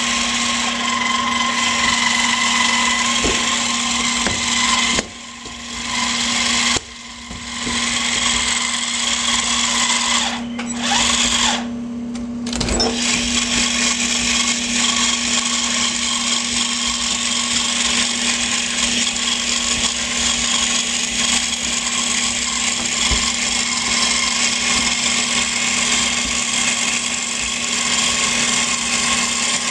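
Electric motor whine from a scale radio-controlled Caterpillar 5110B excavator model as it drives on its tracks. The loud, steady whine briefly cuts out about five and seven seconds in.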